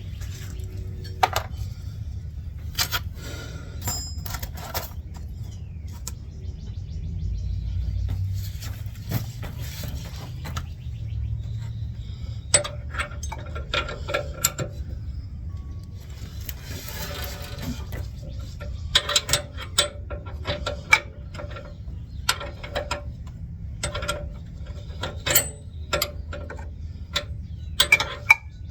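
Hand tools clicking and clinking on the steering linkage's nut and cotter pin: scattered sharp metal taps and clicks, coming thicker in the second half, over a steady low hum.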